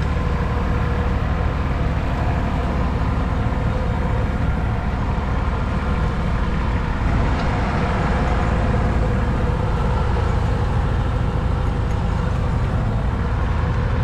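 Diesel engines of a small farm tractor and a combine harvester running, a steady, unbroken drone.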